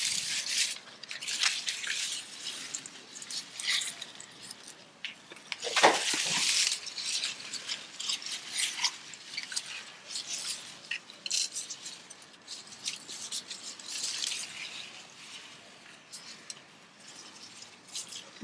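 Hands working potting soil around a plant in a planter: irregular rustling and scraping, with a louder thump about six seconds in.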